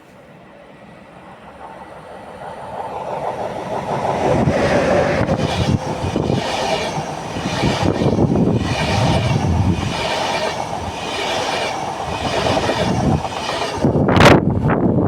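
A train approaching and passing close by: the sound grows louder over the first four seconds, then the cars go by with a steady run of wheel clatter that repeats about once a second. Near the end there is a brief loud burst, the loudest moment.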